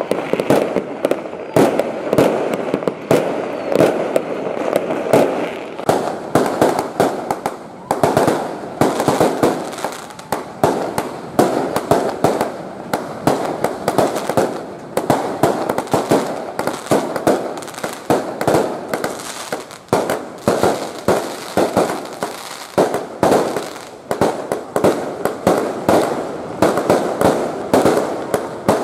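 Fireworks going off in a dense, unbroken barrage: aerial shells and firecrackers bursting several times a second.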